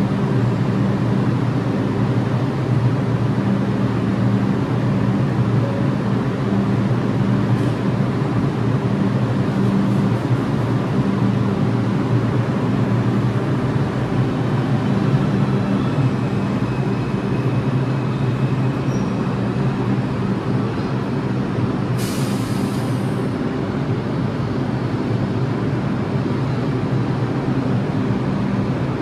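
New York City subway R142 train standing in the station and pulling out, with a steady low drone from its motors and equipment. About 22 seconds in there is a short, sharp hiss of air.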